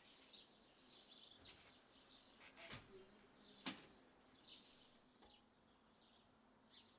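Near silence: faint bird chirps in the background, with two sharp clicks about a second apart near the middle.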